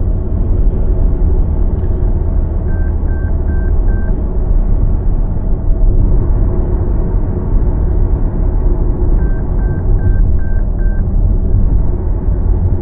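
Steady low road and engine rumble of a moving car. Two runs of short electronic beeps cut through it, about three a second: four beeps about three seconds in and five more near ten seconds in.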